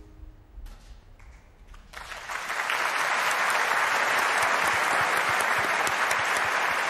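A brief hush, then a large audience breaks into applause about two seconds in, building quickly to steady, dense clapping.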